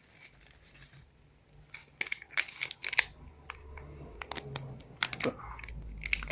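Packaging of a DDR3 laptop RAM module being handled and opened: after a quiet moment, a run of sharp, irregular clicks and crinkles.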